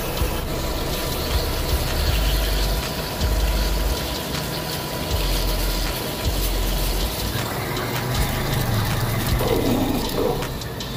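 Metal lathe cutting a steel workpiece, drilling and then boring its bore under a pouring coolant stream. The machine's steady running noise mixes with the splash and hiss of coolant and an uneven low rumble.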